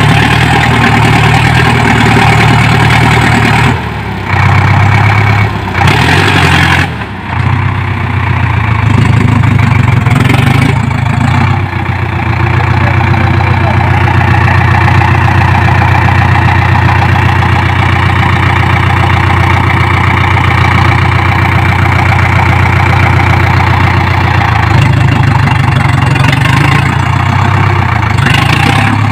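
Preet 6049 tractor's diesel engine running steadily under load as it pulls a spring-tine cultivator through dry soil. The level dips briefly a few times about four to seven seconds in.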